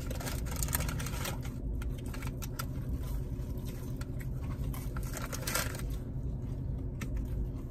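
Eating sounds: chewing and the clicks and rustle of a cardboard fast-food burger box being handled, with a louder rustle about five and a half seconds in, over a steady low hum.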